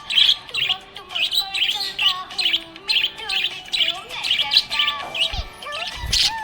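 Small pet parrots chirping in short, high, rapid calls, several a second, over background music with a slow melody. Two low thuds near the end.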